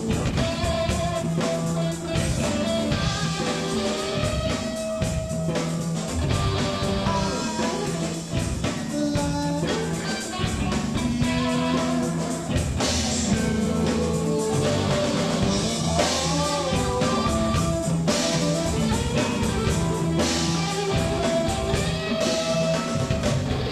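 A rock band playing a song with guitar and a drum kit.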